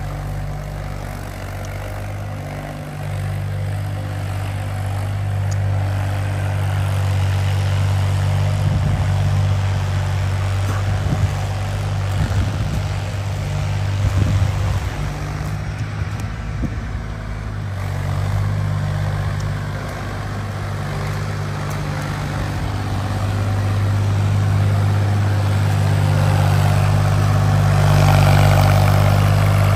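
Mahindra 265 tractor's three-cylinder diesel engine running steadily under load while it drives a rotavator through wet soil. It grows louder near the end as the tractor comes back closer.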